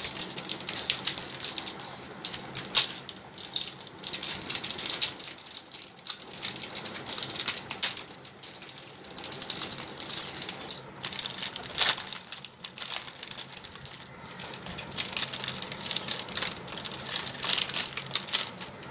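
Clear plastic packaging crinkling and crackling in irregular bursts as it is torn open and the small plastic-wrapped packs of air-dry clay inside are pulled out and handled.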